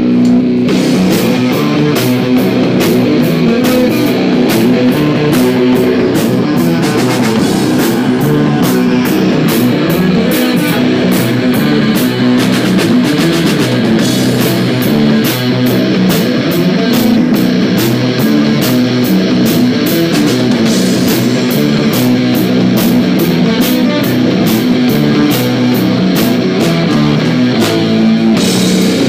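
A rock band playing live and loud: electric guitars and bass guitar over a Gretsch drum kit, the drums keeping a steady fast beat.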